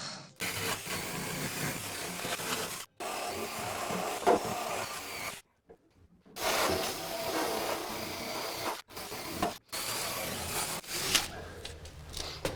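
Rasping, scraping noise of a tool abrading the corroded aluminium edge of a Land Rover rear tub to clean it up and level it, in several stretches that stop and start abruptly.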